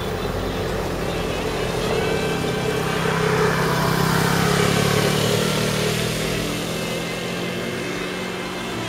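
A car passing close by on a wet road, its engine and tyre noise swelling to a peak midway and fading off.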